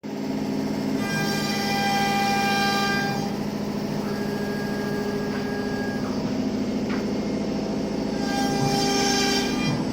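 CNC router machine running: a steady mechanical hum made of several pitched tones, with a higher whine coming in from about a second in to three seconds and again near the end.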